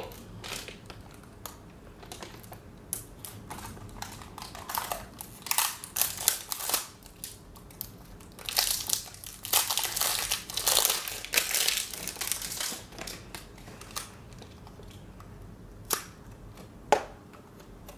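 Plastic packaging crinkling and crackling as a wrapped toy carrying case is handled and picked at in an attempt to open it. The crackling comes in irregular bursts, loudest about halfway through, with two sharp clicks near the end.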